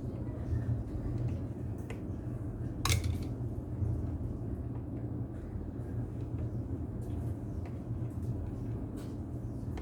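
Scattered small clicks and clinks of tools and parts being handled on a workbench, the sharpest about three seconds in, over a steady low hum.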